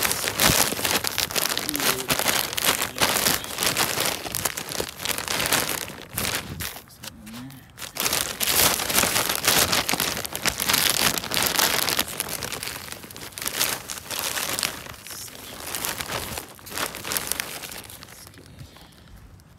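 Plastic bag of garden soil crinkling and rustling as it is tipped and shaken, with loose soil pouring out of it. It drops off briefly about seven seconds in and fades out over the last couple of seconds.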